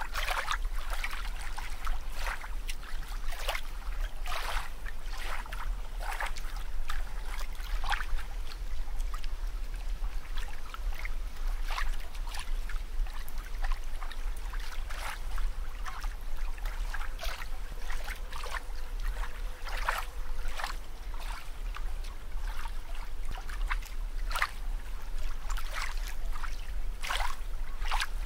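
Bubbling, trickling water sound effect: short bright pops and splashes come irregularly, about one or two a second, over a steady low hum.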